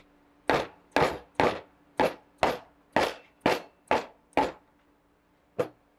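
Soft-faced mallet lightly tapping the side plate of a direct-drive ebike hub motor, nine even taps about two per second and one more after a short pause. The taps seat the side plate properly against the magnet ring before the side-plate screws get their final torque.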